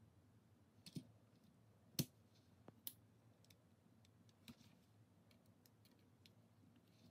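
A few faint, scattered clicks and taps of small parts or tools being handled on a workbench, the sharpest about two seconds in.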